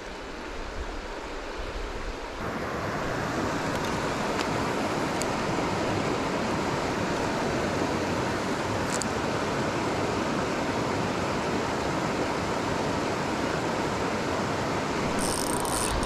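Creek water rushing over a rocky riffle, a steady rush that grows louder about two seconds in. Near the end a spinning reel is cranked to retrieve the lure.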